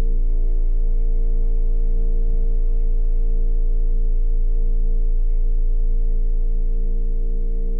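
A steady low drone of deep sub-bass rumble with several held tones above it, unchanging throughout: an ambient horror-film score drone.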